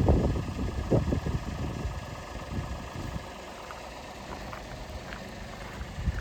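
Toyota Vitz's 1KR 1.0-litre three-cylinder petrol engine running, louder and uneven for the first second or two, then settling to a steady idle.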